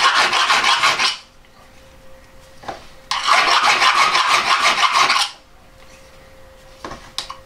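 Coarse rat-tail file rasping inside the hole of a metal washer in quick strokes, enlarging the hole to fit over a coilover damper rod's threaded top. The filing runs for about a second, pauses, and comes in again for about two seconds.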